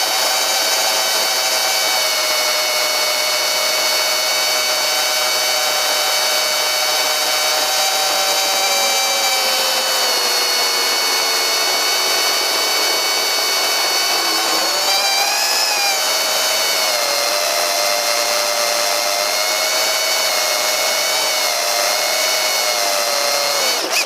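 Tiny pusher FPV drone's small electric motors whining steadily. Their pitch sinks gradually through the middle, then swoops back up about fifteen seconds in and holds.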